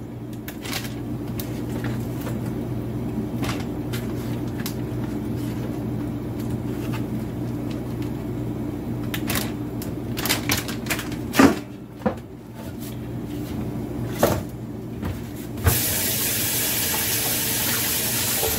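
Kitchen work sounds: scattered clicks and knocks over a steady low hum. About sixteen seconds in, a kitchen faucet is turned on and water runs from it in a steady hiss.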